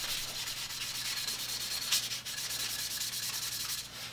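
Green Scotch-Brite pad scrubbed quickly and steadily along a wooden saw handle coated in boiled linseed oil, polishing off the raised whiskers of grain between coats. One sharp click about two seconds in.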